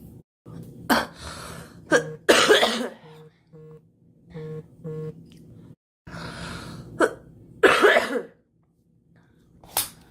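A young woman coughing in harsh, sudden bursts: a fit of three coughs about a second in, two more around seven seconds in, and a last one near the end.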